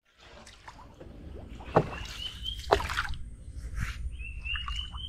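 Wooden canoe being paddled: paddle strokes swishing through the water, with two sharp knocks of the paddle against the hull near the middle.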